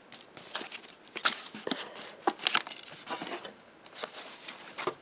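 Packaging being handled and opened by hand: irregular rustling, crinkling and tearing sounds, with a few sharper crackles.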